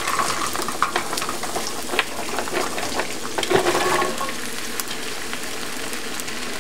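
Stir-fry vegetables sizzling steadily in a hot nonstick skillet on an electric stove, with scattered short ticks and taps as more vegetables are tipped into the pan.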